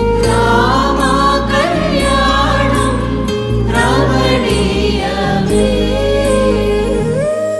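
A song: singing over instruments with a steady bass. Near the end the bass drops out and a single held note remains.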